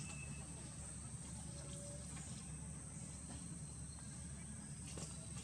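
Steady high-pitched insect drone over a low, even rumble, with a few faint ticks.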